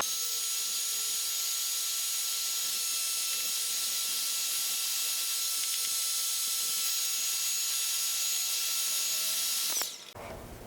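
Electric heat gun running steadily, a fan hiss with a thin steady whine, then switched off about ten seconds in. It is heating a plastic part to reactivate the adhesive of old decals for removal.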